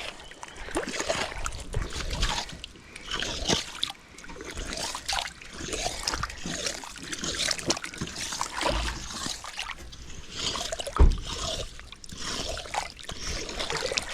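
Puddle water splashing and trickling as it is dug at and drained along a dirt road, with scattered knocks and one heavy thump about eleven seconds in.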